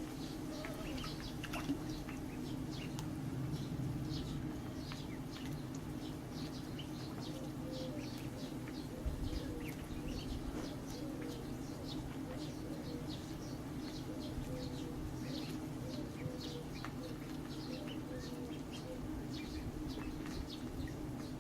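Ducklings peeping: many short high calls, quick and unbroken, with softer lower notes repeating through the middle, over a steady low hum.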